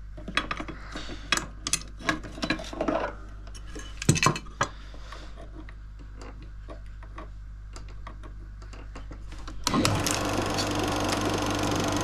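Clicks and knocks of parts being handled as a sound film projector is opened up, over a steady low electrical hum. About ten seconds in, a louder steady running noise starts abruptly and keeps going.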